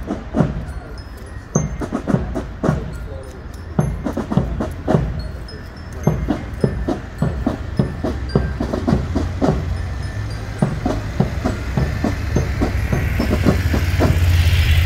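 Marching band's drums and glockenspiel playing, a fast run of sharp drum taps and short high bell notes over a steady low engine hum. Near the end a motorcycle engine grows louder as it passes close by.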